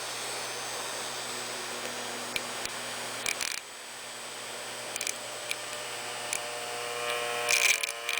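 Miniature five-port PVC air raid siren, its five-blade chopper spun by a small electric motor inside the stator, giving a steady whine with scattered brief ticks. In the last two seconds its tone climbs as it speeds up, and a quick run of rattling clicks comes near the end.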